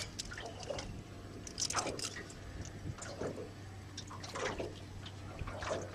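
Small water sounds: a few short splashes and drips about a second apart, over a low steady hum.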